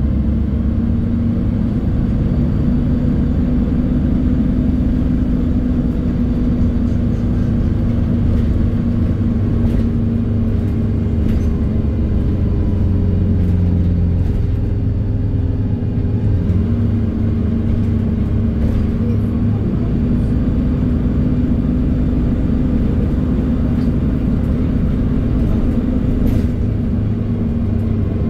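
Cabin sound of a MAZ-203.945 city bus under way: its Weichai WP7NG natural-gas engine runs steadily with a low hum over road and tyre noise. The engine note drops around the middle and picks up again a few seconds later.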